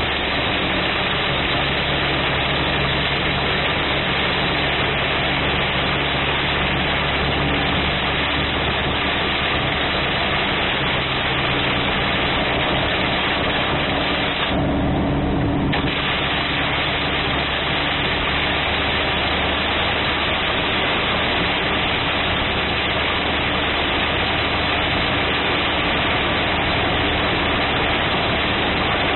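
Torrential rain drumming steadily on a car's roof and windshield, heard from inside the cabin over the low hum of the car's engine. The rain's hiss drops for about a second around the middle.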